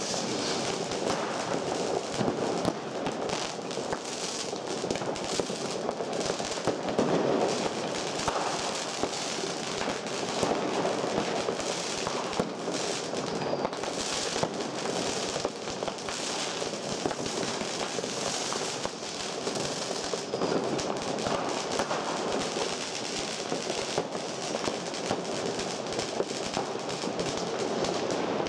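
Fireworks, ground fountains and rockets, going off continuously: a dense, unbroken crackle of many overlapping pops and bangs.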